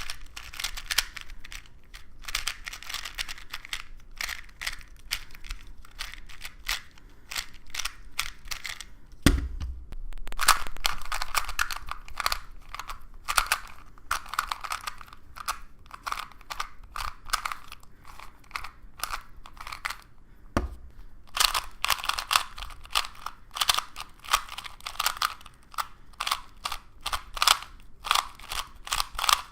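Plastic speed cubes, likely 2x2s, turned in quick runs of clicks and clacks as the layers snap past each other. A low thump about nine seconds in and another about twenty seconds in split the turning into three stretches, each a little different in tone.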